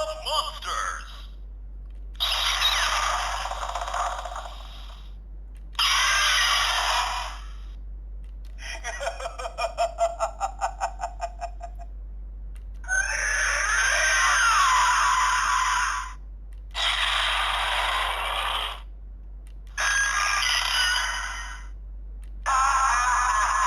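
Electronic sound effects from an Ultraman Trigger GUTS Sparklence transformation toy, played through its small built-in speaker as Ultra keys are used: a run of separate clips, each one to three seconds long with short gaps between them, one a rapid even pulsing of about five beats a second.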